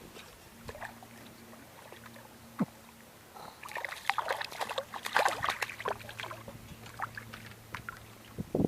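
Water splashing and dripping close by, loudest in the middle, over a faint steady low hum.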